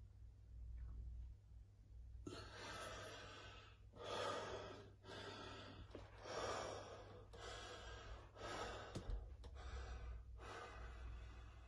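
Heavy, fast breathing of a bodybuilder working through his poses: a run of hard breaths in and out, roughly one a second, starting about two seconds in.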